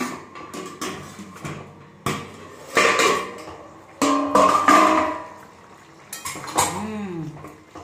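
A stainless-steel plate lid clanks and rings against a metal kadai as it is lifted off, followed by a spatula knocking and scraping in the pan as a thick curry is stirred. Several sharp clanks, a few with a short metallic ring, the loudest a little over four seconds in.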